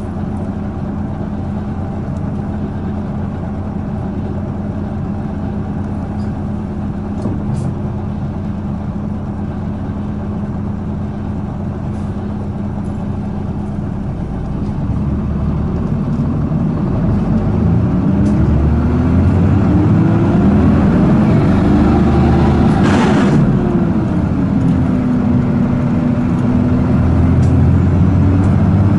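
A 2005 Isuzu Erga city bus's diesel engine, heard from inside the cabin. It runs steadily at first, then about halfway through revs up with rising pitch as the bus accelerates. A short hiss comes near the top of the rev, then the pitch drops and climbs again near the end.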